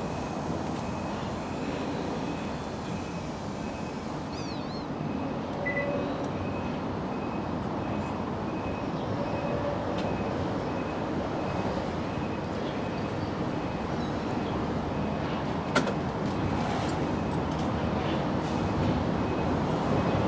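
Steady low outdoor background rumble, like distant traffic, with a faint high tone pulsing evenly throughout, a brief chirp about four seconds in and a single click near the end.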